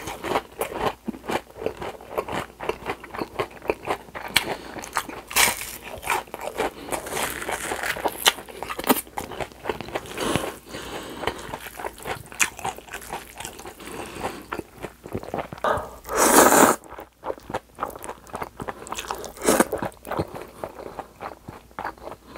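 Close-miked crunching and chewing of a crispy breaded pork cutlet, many quick crisp crunches in a row. About 16 seconds in comes a loud rush of noise as spicy cold noodles are slurped in, with a smaller one a few seconds later.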